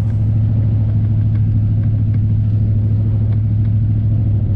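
Engine of a 1990 Chevrolet 3/4-ton four-wheel-drive pickup running steadily as the truck drives along, heard from inside the cab as a constant low drone.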